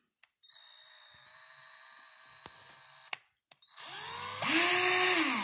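Bauer 20V cordless hammer drill's motor, running off a DeWalt 20V battery through a resistor adapter, spinning up as the trigger is squeezed, running at full speed for about a second and winding down, then a second short burst near the end. The drill running at all shows that the battery conversion works.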